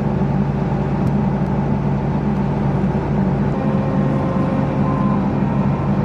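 Combine harvester's diesel engine idling steadily, a constant low hum.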